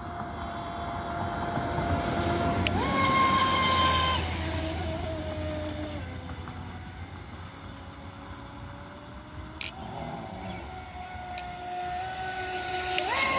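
Pro Boat Sonicwake 36 RC speedboat's brushless motor whining as the boat runs across the water. The pitch jumps up sharply about three seconds in as the throttle is opened, sinks back down and holds low through the middle, then climbs again and jumps up near the end. A single sharp tick comes about two-thirds of the way through.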